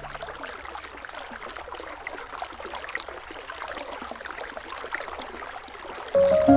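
River water flowing, a steady rush with small trickles and drips. Near the end, music with sustained notes comes in suddenly and louder than the water.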